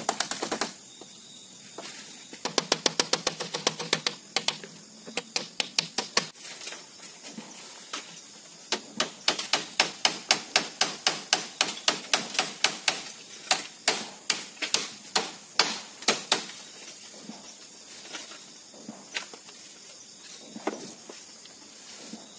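Runs of quick, sharp hammer taps on a woven bamboo wall, about four a second, stopping and starting several times, most steadily in the middle.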